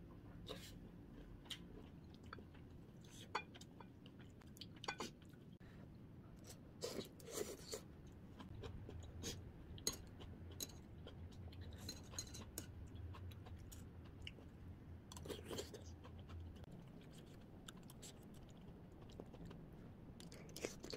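Faint eating sounds: chewing a mouthful of kimchi hotpot, with scattered soft clicks of a spoon and chopsticks against the bowl, over a low steady hum.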